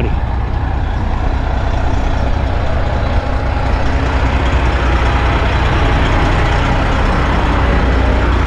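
Truck engine running steadily, a low rumble under a wide, even noise.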